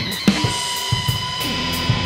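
Rock background music with a drum kit and cymbals keeping a steady beat.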